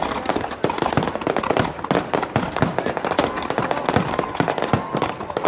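Fireworks display going off: a dense, irregular run of bangs and crackling pops, several a second with no break.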